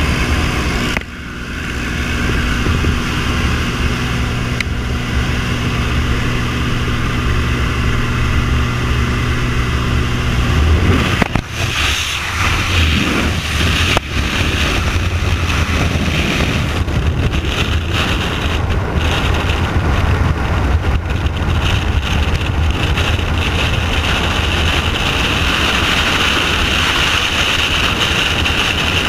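Small propeller plane's engine droning steadily through the open jump door; about ten seconds in, the skydivers exit and the engine hum gives way to a steady rush of freefall wind over the helmet camera's microphone.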